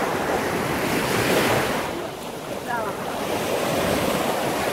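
Sea surf washing in around the feet in shallow water, with wind buffeting the phone's microphone. The wash swells about a second in, ebbs briefly, then builds again.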